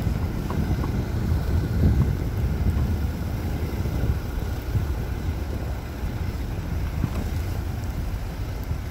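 Jeep engine running with a steady low rumble, with wind buffeting the microphone.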